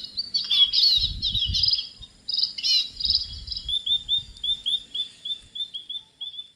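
Songbirds chirping and singing: a dense tangle of quick overlapping chirps and warbles for the first few seconds, then one bird repeating a short chirp about three times a second. A faint steady high-pitched buzz runs underneath.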